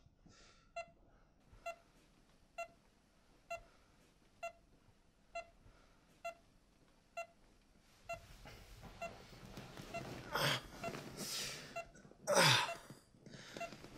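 Bedside heart monitor beeping steadily about once a second, then speeding up to about two beeps a second some eight seconds in, the sign of a quickening heart rate. A rising rush of noise builds under the faster beeps, and a loud sudden sound with a steeply falling pitch comes near the end.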